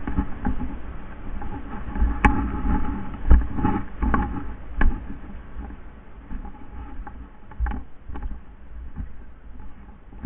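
Footsteps through dry leaves and brush, with rustling and scattered sharp clicks. The loudest click comes about two seconds in.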